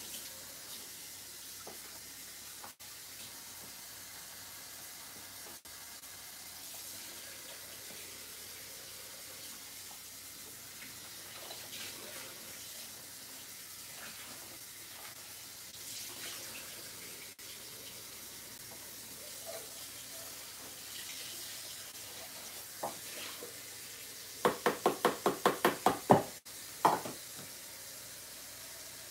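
Cold water running from a kitchen faucet as salmon is rinsed under it, a steady rush. Near the end, a quick run of about eight sharp knocks, then one more.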